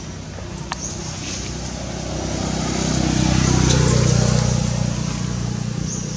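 A motor vehicle's engine passing by, its low hum swelling to a peak about halfway through and then fading.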